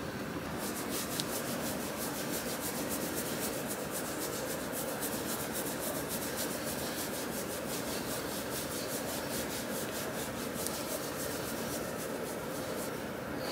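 A hand rubbing and scratching a puppy's fur, a quick run of scratchy strokes, several a second, starting about half a second in.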